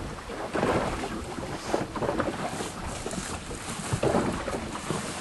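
Wind buffeting the microphone in uneven gusts over the wash of choppy water.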